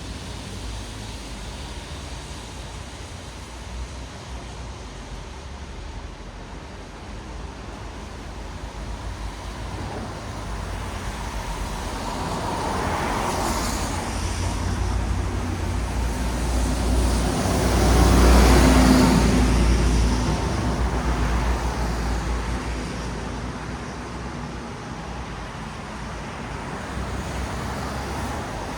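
Road traffic on wet asphalt: a steady hiss of tyres on the wet road with engine rumble under it. One vehicle swells past, loudest about two-thirds of the way through, then fades.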